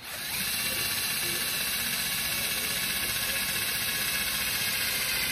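Cordless drill running steadily at full speed, boring a screw hole through a car door armrest into something solid underneath.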